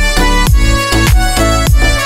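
Background music with a steady beat: a deep kick drum hits about every 0.6 seconds under held melodic notes.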